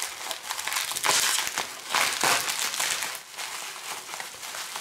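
Plastic bubble wrap crinkling and rustling in irregular bursts as hands pull it apart and unwrap it.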